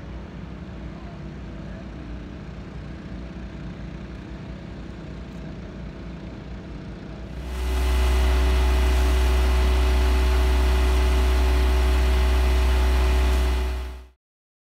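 A steady engine drone with a low hum. About halfway through it becomes much louder, with a dense steady hiss over the drone as a hose jets water onto mud-covered pavement. It cuts off suddenly near the end.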